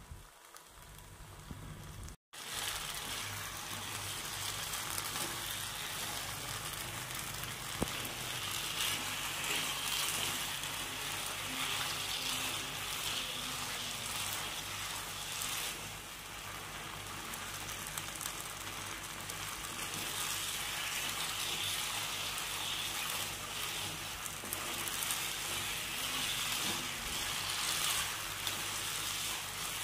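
Aval kesari (sweetened beaten rice) sizzling steadily in ghee in a nonstick pan as it is stirred with a wooden spatula. The sizzle picks up about two seconds in.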